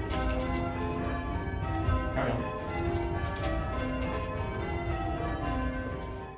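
A ring of six church tower bells rung full-circle from the ringing chamber by rope, the bells striking one after another in a steady, continuous sequence, their tones overlapping and ringing on.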